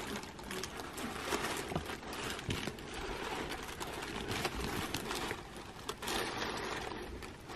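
Handling noise of a Chanel Gabrielle backpack in quilted leather with metal chain straps being opened and turned over in the hands: steady rustling with many small clicks.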